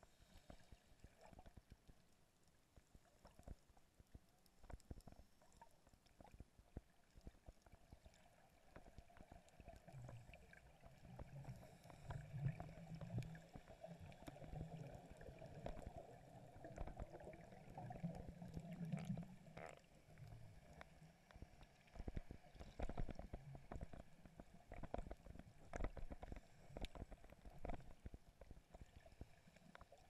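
Faint underwater sound: a scattered crackle of small clicks, with a low bubbling rumble from scuba divers' exhaled air swelling from about ten to twenty seconds in.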